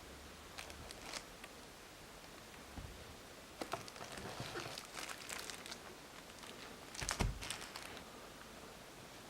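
Packaging being handled while unboxing: crinkling and rustling with scattered clicks, and a thump about seven seconds in.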